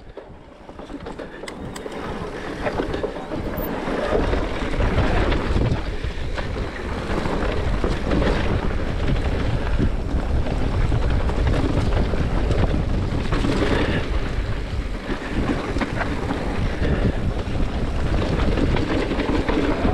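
Wind buffeting a handlebar-mounted action camera's microphone, mixed with mountain bike tyres rolling over a dirt trail and the bike rattling, building over the first few seconds as speed picks up and then holding steady.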